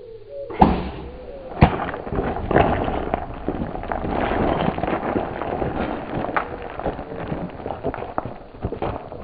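Two sharp cracks, about half a second and a second and a half in, then a sable bull running off over stony ground, with a dense clatter of hooves on rock and gravel and brush crackling.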